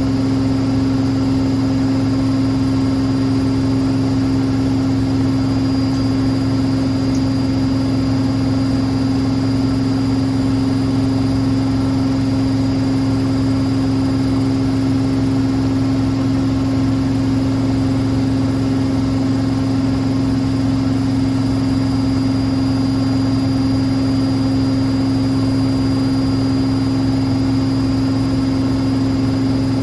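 Hotpoint WML540 Aquarius washing machine in its final spin with the door open, the drum and motor running at a steady speed. It gives a loud, unchanging hum over a low rumble.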